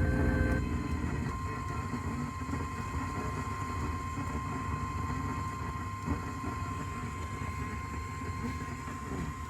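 Emergency-alert tone: a steady single-pitched tone near 1 kHz, typical of the NOAA Weather Radio 1050 Hz warning alarm, starts about a second in and holds, over a constant low rumble of radio reception noise. It marks the start of a new tornado warning. At the very beginning a brief steady two-tone sound cuts off just before it.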